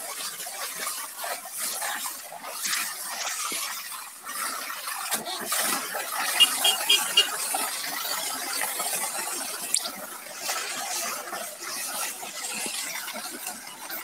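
Water jetting from a hose and splashing onto a tractor and rotavator, a steady hiss with a few short sharp ticks about halfway through.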